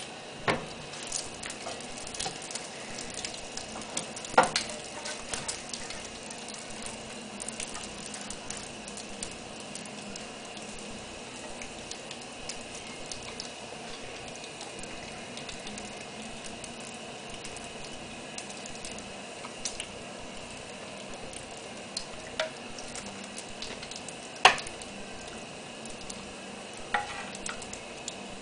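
Bananas Foster sauce sizzling on a pancake in a nonstick skillet while a wooden spoon stirs, scrapes and taps against the pan. Several sharper knocks, the loudest about four seconds in and again about twenty-four seconds in.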